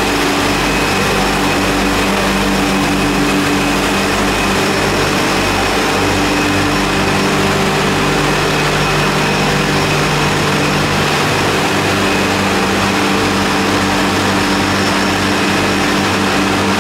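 Olive mill processing machinery running: a loud, steady mechanical hum with several constant tones that does not change.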